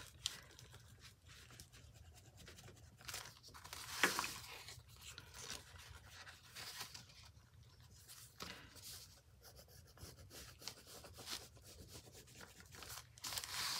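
Faint scratching of a pencil shading along paper edges, with light paper rustling as the journal is handled and one sharper tick about four seconds in.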